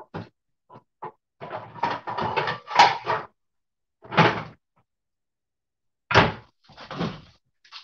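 Kitchen handling noises: a run of irregular knocks, clunks and scraping rustles, bunched about two to three seconds in, with sharper single knocks at about four and six seconds.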